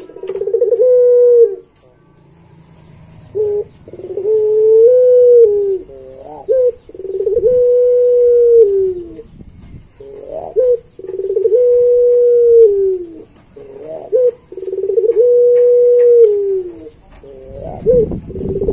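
A puter pelung, a domestic dove bred for its long drawn-out coo, cooing over and over. Each call is a couple of short notes, then one long held note that drops in pitch at the end, coming about every three seconds.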